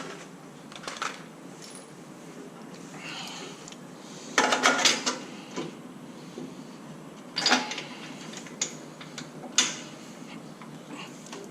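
Metal hand tools clinking and clattering during spark plug and plug lead removal on the engine. There is a cluster of sharp clinks about four and a half seconds in, another about seven and a half seconds in, and a single sharp click near the end.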